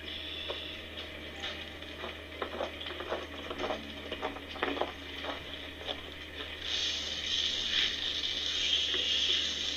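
Footsteps crunching on frozen snow and leaves as a short run of uneven clicks. From about seven seconds in, a steady hiss of feed pouring from a bucket into a hanging feeder tray grows louder. A faint constant electrical hum sits underneath.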